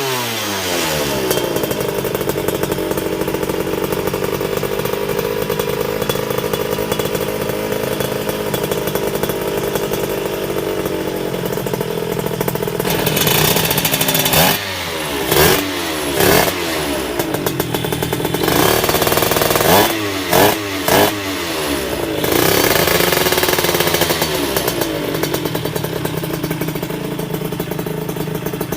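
Honda LS125 two-stroke motorcycle engine running. It settles to a steady idle early on, and from about halfway through the throttle is blipped in a run of quick, sharp revs, with a couple of longer rev rises and falls, before it drops back to idle.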